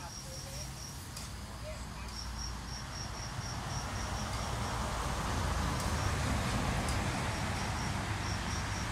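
Crickets chirping steadily, a high, even pulse of about five chirps a second, over a low hum. A broad rushing noise from a passing vehicle swells from about three seconds in.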